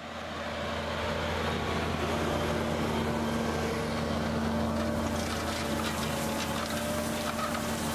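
Tractor engine running steadily under load while pulling a tine cultivator through the soil: a constant low engine hum with a steady tone over a dense noise.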